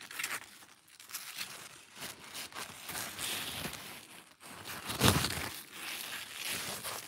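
Squash leaves rustling and crinkling as a hand pushes through the vines, the leaves brushing close against the phone's microphone, with the loudest rustle about five seconds in.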